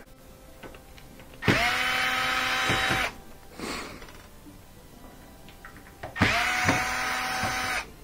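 Cordless drill-driver backing out screws: two runs of about a second and a half each, every one spinning up quickly to a steady whine and then stopping.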